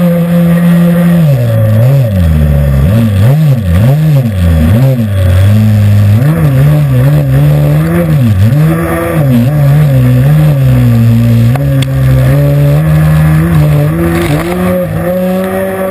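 SuperTigre nitro glow engine and air propeller of an Aquacraft R/C airboat running loud and close. The engine pitch holds steady for about a second, then rises and falls repeatedly as the throttle is worked. It settles lower and climbs again near the end.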